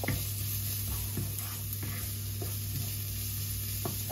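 Chopped shallots sizzling gently as they sweat in hot oil in a non-stick frying pan, stirred with a wooden spoon that scrapes and taps against the pan every second or so. A steady low hum runs underneath.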